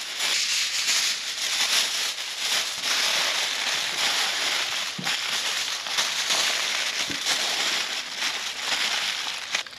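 Aluminium foil crinkling and crackling continuously as it is folded and wrapped by hand around a large smoked brisket, with sharper crackles now and then.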